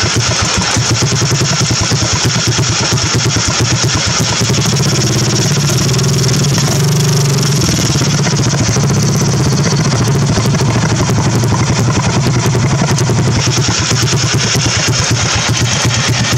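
Riding lawn mower engine running steadily, filmed from under the deck while its drive belt turns over a newly fitted idler pulley. The pulley was added to stop the belt slipping and popping off.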